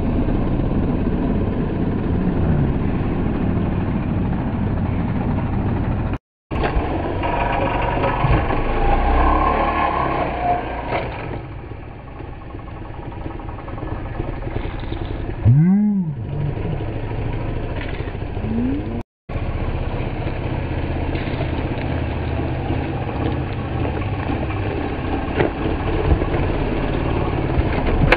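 Engine of a small Suzuki youth dirt bike running and being revved as it is ridden over grass, its pitch rising and falling with the throttle, with one quick rev up and back down about sixteen seconds in. The sound drops out briefly twice, at about six and nineteen seconds in.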